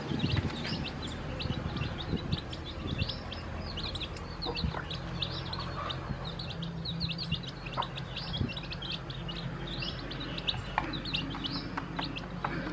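Newly hatched chicks peeping continuously, a dense chatter of short high chirps. In the last couple of seconds, sharp taps join in as the hen and chicks peck feed off the plastic feeder plate.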